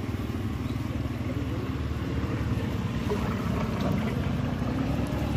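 Steady low drone of an engine running, with an even pulsing throb.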